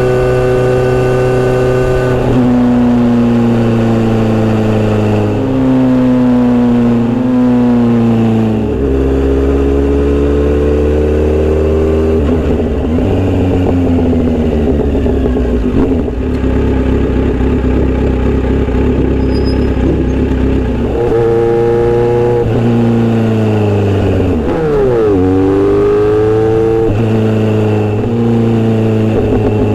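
Inline-four motorcycle engine running under way on a ride. Its pitch rises and steps down through gear changes, settles to a lower steady note in the middle, then climbs through the gears again.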